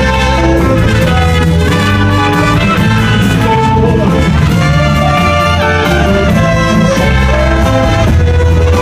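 Loud band music with horns playing over a steady bass line.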